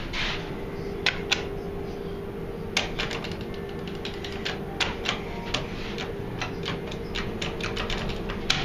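Elevator car-panel push buttons clicking as they are pressed, a dozen or so irregular clicks, over a steady hum in the small elevator cab.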